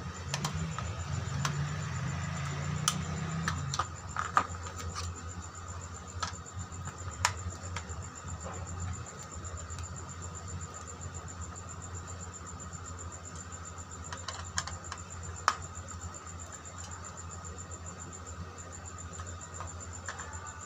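Screwdriver clicking and scraping on the screw terminals of a plastic switch-and-socket plate as phase wires are fastened: scattered sharp clicks, over a steady background hum.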